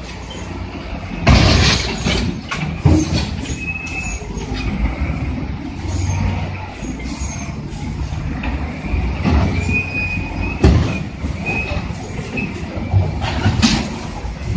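Bulldozers' engines running with steel crawler tracks squealing in a high thin tone, broken by several loud metal-on-metal bangs as the machines ram each other; the heaviest bang comes about a second in.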